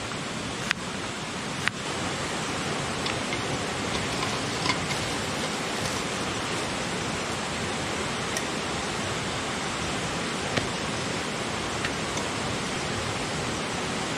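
Steady rush of river water flowing, with a few faint clicks of handling scattered through it.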